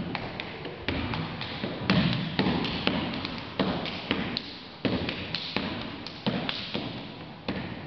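Drill-team stepping: sneakers stomping on a rubber gym floor mat with hand slaps against the legs, a string of sharp thuds and slaps in an uneven rhythm.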